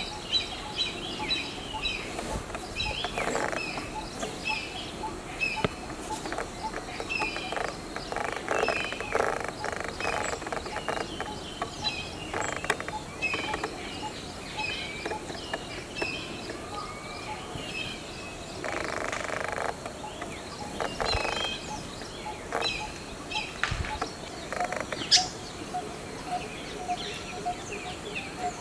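A chorus of several wild birds chirping and calling, with a low note repeated over and over that is clearest in the second half, a few short bursts of harsh noise, and one sharp click near the end.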